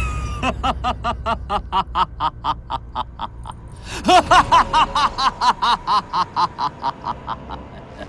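A man laughing mockingly in two bouts: a run of short, even 'ha' pulses, then a louder outburst about four seconds in that slows and fades away.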